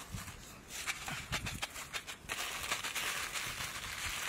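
Roasted tamarind beetles and chillies tumbling out of a wok onto lettuce leaves: a run of dry clicks and rattling, turning into a steady rustling about halfway through.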